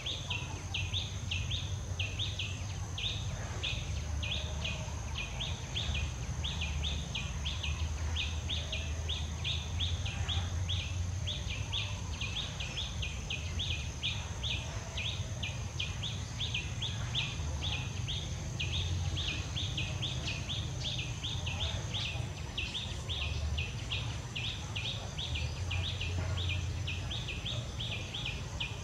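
Forest ambience: steady, rhythmic high chirps, about three a second, over a thin continuous high whine that fades slightly about two-thirds of the way in, with a low steady rumble beneath.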